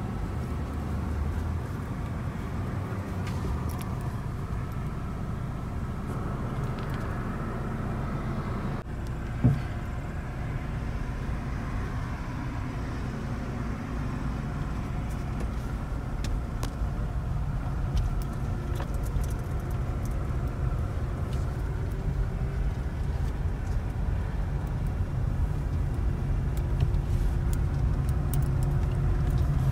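Steady low rumble of a car's engine and road noise heard inside the cabin as the car drives, with a single brief thump about nine seconds in and the rumble growing a little louder near the end.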